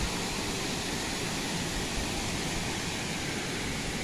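Steady rush of water spilling over a small concrete weir.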